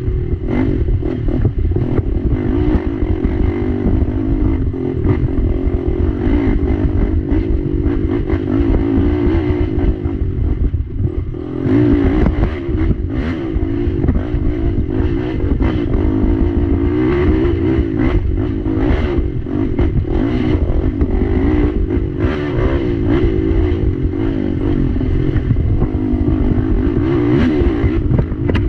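Race ATV's engine running hard under throttle, its pitch rising and falling as the throttle is worked, with frequent clattering knocks from the machine over the rough trail.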